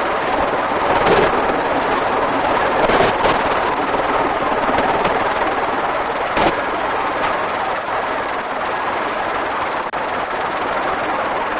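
Helicopter running close by, a loud steady noise of turbine and rotor wash, with a few brief knocks along the way.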